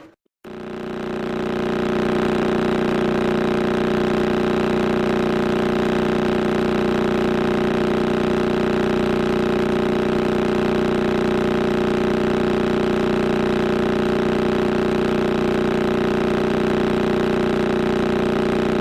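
Audio rendering of the Crab pulsar's signal: a steady, unchanging hum made of many held tones, fading in just after the start.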